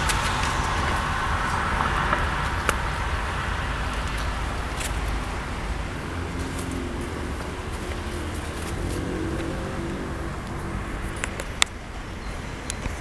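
Uerdingen-type diesel railbus pulling away along the track, its engine rumble fading steadily into the distance. A few sharp clicks come through, the loudest near the end.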